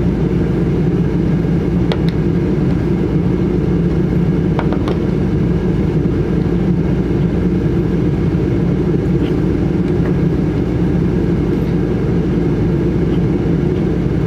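A steady low mechanical drone, with a few faint light clicks a couple of seconds in and again around five seconds in.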